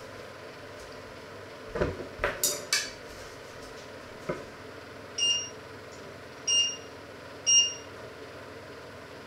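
Metal kitchen utensils clattering several times as tongs are picked up, then three short high electronic beeps about a second apart from a glass-ceramic hob's touch controls being pressed.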